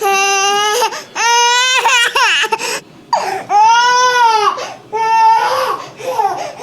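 Baby crying: a series of loud, high-pitched wails, each lasting under a second, with a longer arching wail in the middle.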